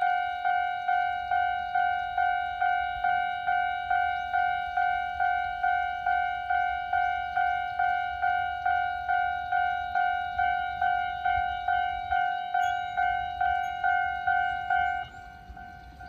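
Japanese railway level-crossing warning bell ringing a steady, slightly fast run of dings, about two to three a second. About 15 seconds in it drops sharply in volume.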